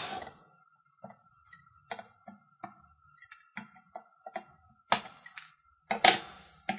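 Small Craftsman diagonal wire cutters clipping resistor leads flush with the solder mounds on a circuit board: a run of light clicks, with two sharper snaps about five and six seconds in.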